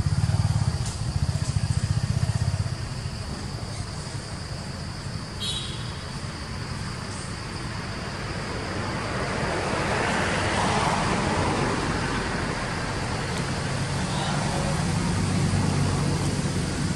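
A motor vehicle's engine running as it passes: a steady low hum with a louder swell of noise around the middle.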